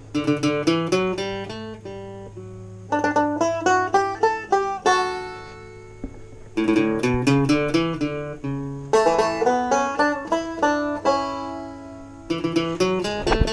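Banjo music: quick runs of plucked notes in several phrases, each phrase followed by a short lull where the notes ring out.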